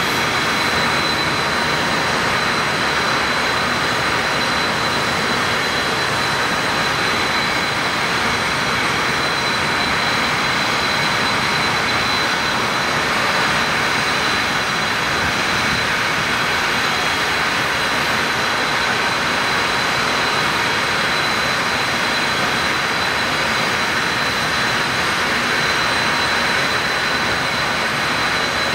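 The Ste. Claire's steamboat whistle blown on compressed air: one long, steady, breathy rush of air with a faint thin high tone over it.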